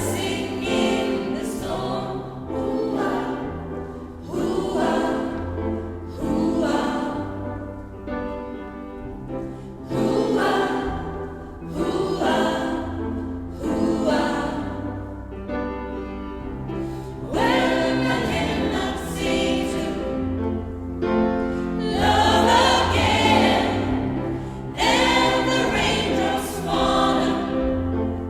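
Gospel choir singing a song in phrases of a second or two, over a steady bass accompaniment.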